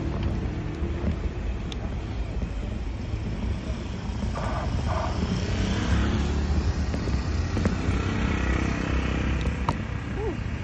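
Steady low rumble of wind and road noise on a handlebar-mounted phone's microphone while riding a 20-inch folding bike.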